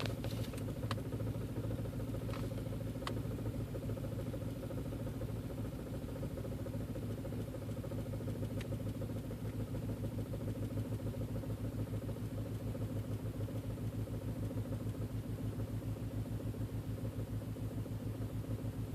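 Volkswagen 1.8T (AWW code) turbocharged four-cylinder engine idling with a steady, pulsing beat: the rough idle the owner is recording.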